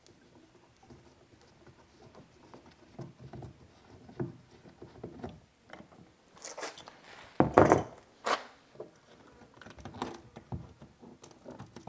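Hands working plastic fittings and hose on a plastic RV fresh water tank: scattered small taps, clicks and scrapes. A louder burst of handling noise comes about six and a half to eight and a half seconds in.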